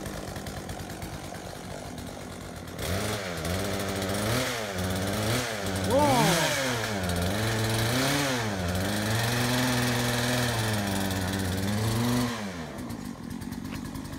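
Gas chainsaw idling, then revved up and down over and over for about nine seconds, then dropping back to idle near the end.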